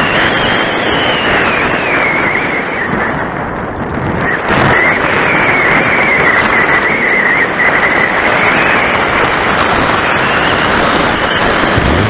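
Loud wind and airflow rushing over the onboard camera's microphone on a radio-controlled glider in flight, with a high whistle that rises and falls in pitch as the airspeed changes. The rush eases briefly about three to four seconds in, then comes back.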